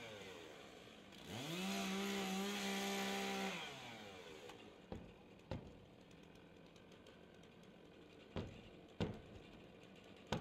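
Two-stroke chainsaw engine winding down, briefly run up to full speed again for about two seconds with the saw held off the roof, then dropping back off. A few sharp knocks follow in the second half.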